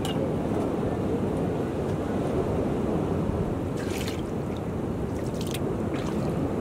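Steady low rumble of shoreline surf and wind, with a few short crackles about four seconds in and again around five and a half and six seconds.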